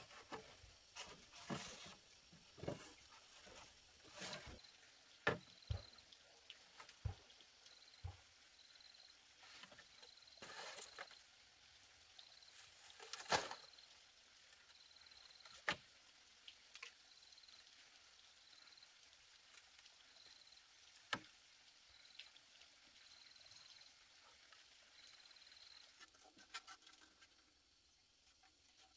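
Scattered light knocks and clacks of bamboo poles being handled and shifted on a bamboo frame, most of them in the first half. A faint high chirp repeats about once a second in the background.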